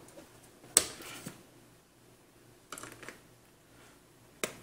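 Sharp clicks and knocks of a screwdriver and a metal-and-plastic drive enclosure being handled while an optical drive is screwed in. A loud knock comes about a second in with a brief rustle after it, a short run of clicks near three seconds, and another sharp click near the end.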